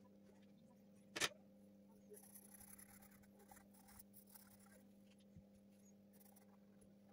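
A single sharp knock about a second in, then a pencil scratching faintly on drawing paper as it shades, over a low steady hum.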